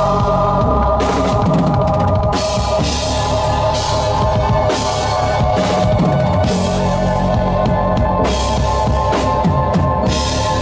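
Live electronic music: a synthesizer holds a steady sustained chord while a drum kit plays underneath, with bass drum and recurring cymbal washes.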